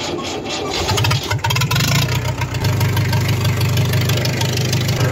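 Farm tractor's diesel engine being started: a rough first second, the engine catching and rising in pitch about a second in, then running steadily with an even low pulse.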